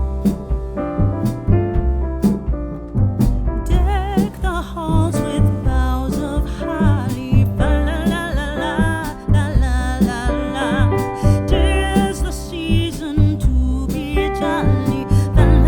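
A pop-style song with piano and a strong bass line; a singing voice with vibrato comes in about four seconds in.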